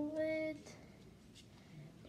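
A boy's voice holding one short, steady hummed or sung note that ends about half a second in, followed by faint rustles of trading cards being handled.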